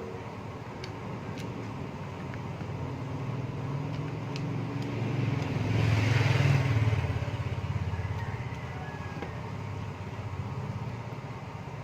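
A motor vehicle passes by, its engine rumble swelling to a peak about halfway through and then fading away. A few faint small clicks come before it.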